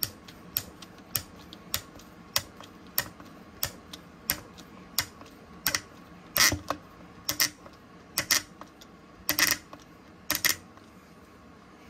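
Flathead screwdriver turning a wood screw into a wooden rifle stock by hand, with a sharp click about every half second. The clicks grow louder, come in pairs and space out in the second half as the screw gets tighter, binding in a pilot hole drilled too shallow.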